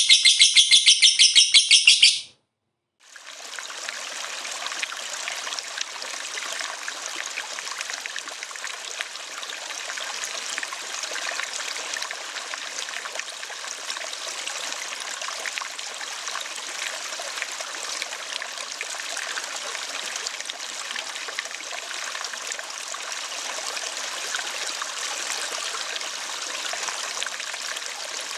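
A lovebird gives its long chattering 'ngekek' call, a fast run of high, even notes, for about two seconds, and it cuts off suddenly. After a short silence, the steady sound of a trickling stream of water begins and runs on evenly.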